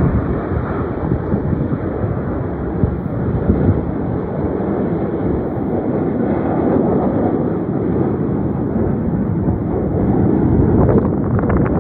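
Steady distant rumble of a formation of Kawasaki T-4 jet trainers flying by, mixed with wind buffeting the microphone. Near the end a quick run of short clicks joins in.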